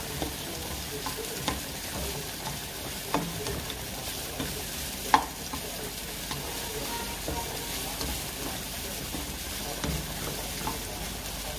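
Onions and meat sizzling as they sauté in a wok, with a spatula stirring and knocking against the pan now and then; the sharpest knock comes about five seconds in.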